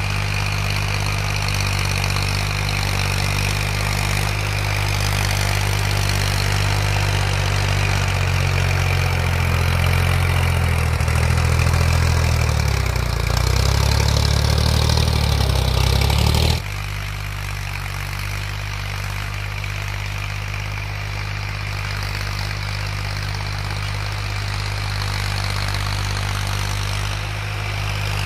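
Massey Ferguson 1035 DI tractor's 35 hp three-cylinder diesel engine running under load while pulling a cultivator, growing louder as the tractor comes close, its note wavering near its loudest. About two-thirds of the way through the sound cuts off abruptly to a quieter, steady engine note from farther away.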